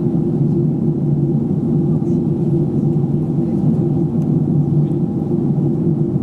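Jet airliner cabin noise in flight: a steady low drone of engines and rushing air, heard inside the cabin at a window seat.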